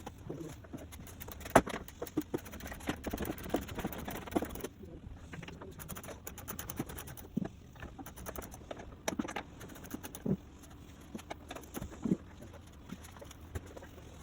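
Irregular clicks and knocks of hand work on a car, parts and tools being handled, the sharpest knock about a second and a half in.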